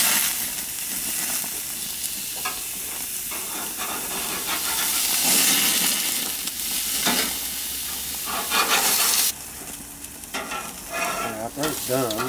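Hamburger patties sizzling on a gas grill's grates as they are flipped with a metal spatula. The sizzle drops noticeably about nine seconds in.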